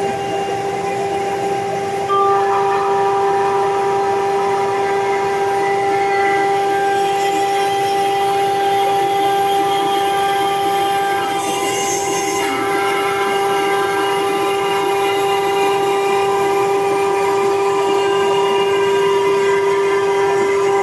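CNC router spindle whining steadily at one high pitch, with a hiss, while cutting 10mm hard acrylic sheet; it gets louder about two seconds in.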